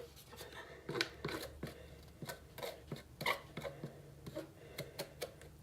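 Faint, irregular clicks and light scrapes on a hard surface as powdered Splenda sweetener is pushed into lines with a flat object.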